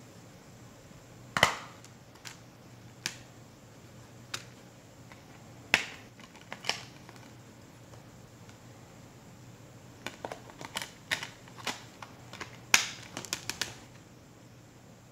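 Clear plastic Blu-ray keepcase being handled and opened, with its hinged disc tray flipped: sharp plastic clicks and snaps. A few come singly in the first half, the loudest about a second and a half in, then a quick run of clicks near the end.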